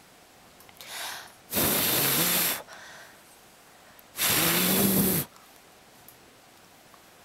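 A person blowing two long puffs of breath, about a second each, into a cat's fur right at the microphone, with a softer intake of breath before the first.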